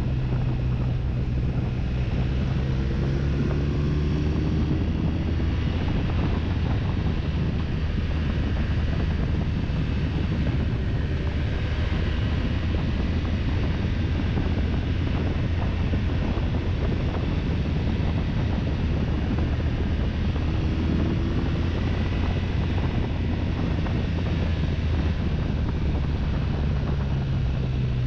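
BMW touring motorcycle's engine running at road speed under heavy wind rush over the helmet-mounted microphone; the engine note climbs briefly a few seconds in.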